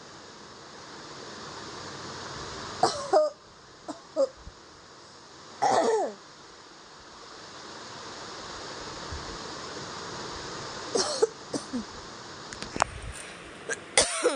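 A person coughing with puffed-out cheeks: short, voiced coughs in several clusters separated by pauses, over a steady hiss.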